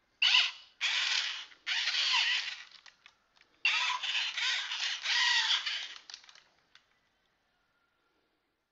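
Program-a-bot toy robot's small geared motors whirring and grinding in about five bursts as it turns and moves its arms, stopping about six seconds in.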